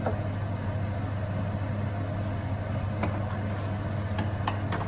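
A steady low hum with an even hiss behind it, and a few light clicks in the last two seconds.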